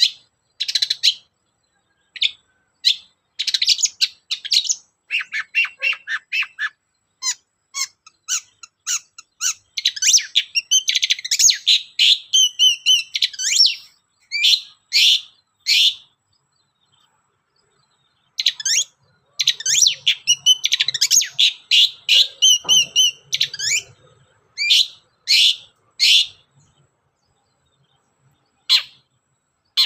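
Long-tailed shrike (cendet) singing a fast run of harsh, scratchy chattering notes mixed with whistles. It breaks off for about two seconds past the middle and again near the end.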